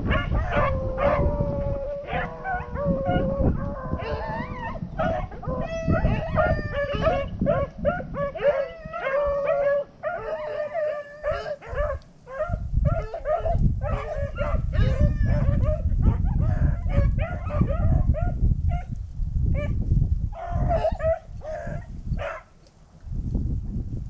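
A pack of rabbit dogs baying and howling in full cry on a rabbit's track, several voices overlapping in long drawn-out bays, with wind rumbling on the microphone.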